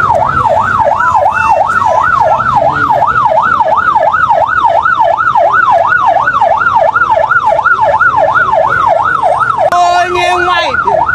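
A vehicle siren yelping, its pitch sweeping rapidly up and down about three times a second. A short steady tone joins in under it near the end.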